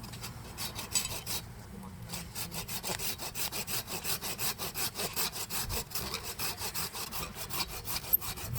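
Hand saw cutting through firewood in quick, even back-and-forth strokes, several a second, with a short pause about two seconds in.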